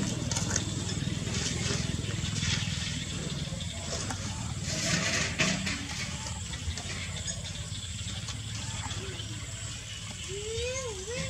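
Plastic garbage crinkling and rustling as puppies pull at it and chew it, loudest about halfway through, over a steady low hum. A short wavering, voice-like sound comes near the end.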